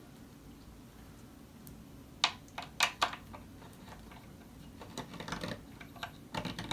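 Sharp metallic clicks and taps of bolts being fitted into the metal tilt-mechanism plate under an office chair seat: a quick group of four about two seconds in, then scattered softer clicks near the end.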